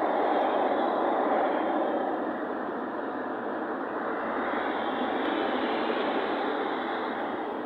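Steady rushing road noise of a vehicle on the move, tyres and wind, with no distinct engine note.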